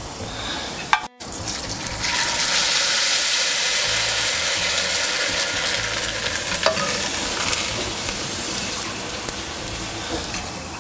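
Fresh rice noodles deep-frying in hot oil in a wok: a loud, steady sizzle that starts about two seconds in and slowly dies away. A sharp click about a second in and another near the middle.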